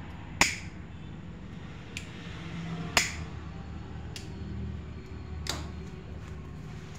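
Disposable lighter being struck to light a candle: about five sharp clicks, the loudest about half a second and three seconds in.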